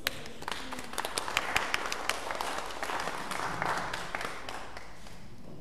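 Audience applauding, a dense patter of claps that swells and then dies away near the end.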